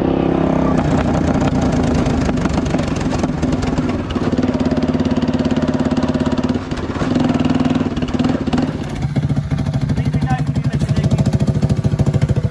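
Honda TRX300 6x6's single-cylinder four-stroke engine running under way with no muffler, its firing pulses distinct. It holds a steady speed with a few brief dips as the throttle eases off.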